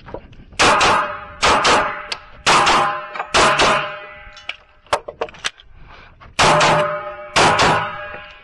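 10mm Glock 20SF pistol firing in quick pairs, two shots on each target, with a ringing echo after each pair. There are four pairs in the first four seconds and two more near the end, and a few short sharp clicks in the lull between them.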